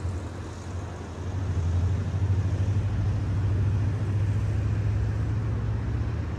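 Wind buffeting the phone's microphone: a steady low rumble that grows louder about a second and a half in, over a faint even outdoor hiss.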